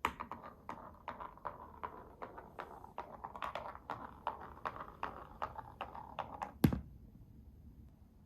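Glass marbles rolling and clattering down a wooden wave-slope marble run: a steady rolling rumble with many quick clicks as they cross the joints and waves, ending in one loud knock near the end.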